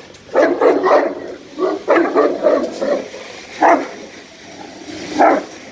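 Caucasian Shepherd dog barking in provoked guarding barks: quick runs of barks through the first three seconds, then single barks near four and five seconds in.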